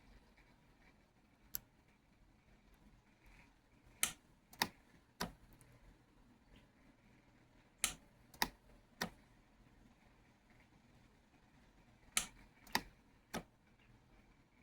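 Sharp clicks from jewelry repair work on a hollow-tube necklace lock: a single click, then three sets of three evenly spaced clicks about half a second apart.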